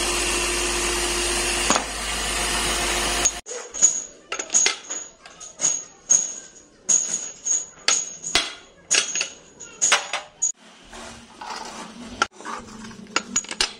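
A workshop machine runs steadily, then cuts off suddenly about three seconds in. Steel kingpins then clink and knock against each other and a steel tray as they are handled and set down: a long run of sharp, ringing metallic clinks.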